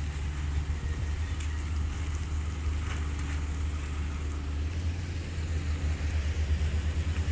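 Steady low rumble, with a few faint crinkles and taps as a plastic-wrapped box spring is pulled from the truck and lifted.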